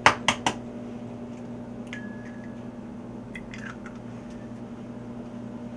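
An egg being cracked and opened into a bowl: three sharp cracks of shell in the first half second, then faint shell handling and egg dropping in.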